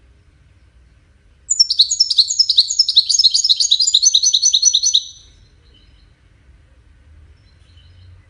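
European goldfinch singing one fast, twittering phrase of rapid repeated high notes, starting about a second and a half in and stopping abruptly about three and a half seconds later.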